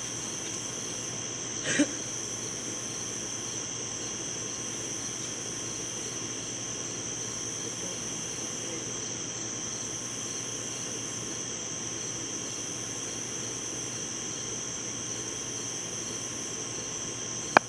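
Steady night chorus of crickets, with one short sharp knock about two seconds in and a sharp crack right at the end.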